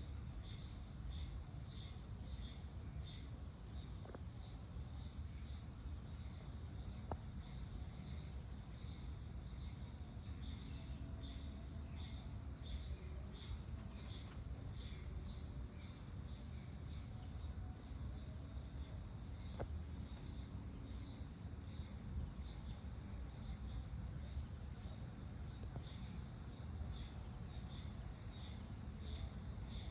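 Evening insect chorus: a pulsed chirp repeating about twice a second over a steady high trill, with a low steady rumble underneath.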